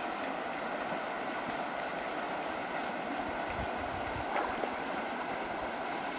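Steady rush of water with the even drone of a boat's motor as the boat moves along the river.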